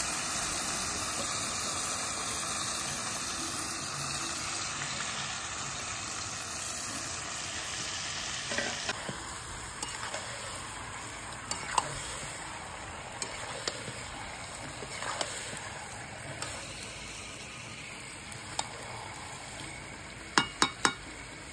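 Chicken pieces with onions and spices sizzling in hot oil in a steel wok, the sizzle loudest at first and fading. A spatula scrapes and knocks against the wok as the curry is stirred, with three sharp knocks near the end.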